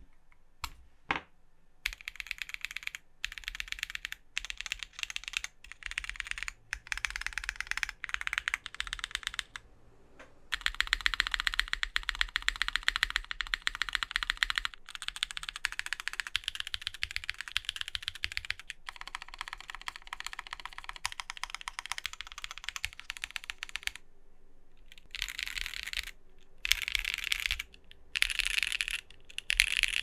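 Custom Nayeon TKL mechanical keyboard being typed on: Zaku switches lightly lubed with 205g0 and fitted with Durock films, on a polypropylene plate under GMK Dolch R5 keycaps. A few lone key presses come first, then steady typing in runs with brief pauses and a longer lull about three quarters of the way through.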